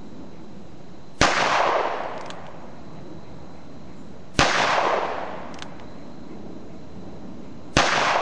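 Three handgun shots about three seconds apart, each a sharp crack with an echo that trails off over about a second.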